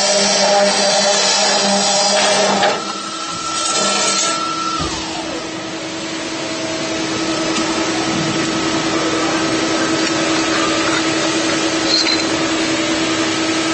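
CNC pipe cutting machine running with a steady motor whine over a hiss; about five seconds in one higher whine falls away in pitch, as a drive slowing down, while a lower steady hum carries on.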